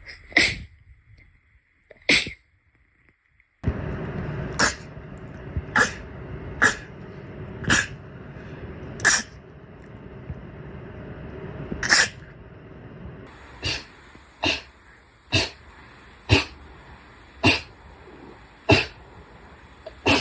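A rapid series of about fifteen short, sharp sneezes, roughly one a second. The background noise changes abruptly twice between them.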